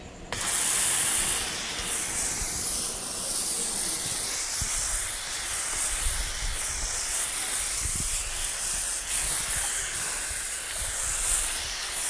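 Pressure washer with a foam cannon spraying touchless shampoo foam: a steady hiss of spray that switches on abruptly just after the start and is loudest in its first second.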